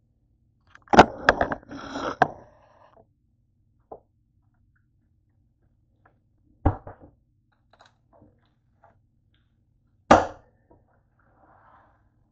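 Knocks and clatter of toasted bread slices being set down and handled on a cutting board: a quick burst of knocks about a second in, then two single knocks later on.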